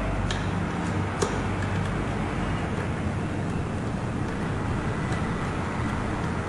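Steady background noise, a low rumble with hiss, like distant traffic. Two light clicks in the first second or so come from the old nylon strings being handled at the ukulele's tuning pegs.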